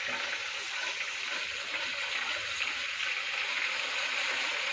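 Hot sesame oil sizzling steadily in an iron wok as chopped ginger, garlic and chilli fry, with soy sauce just poured in, while a metal spatula stirs.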